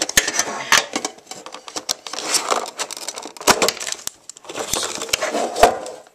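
A metal Pokémon trading card tin being handled and opened: irregular sharp clicks and knocks of the tin, with stretches of rustling.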